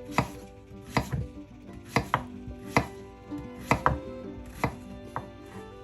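Knife slicing through peeled zucchini onto a cutting board, a sharp chop roughly once a second at uneven spacing, some strokes coming in quick pairs.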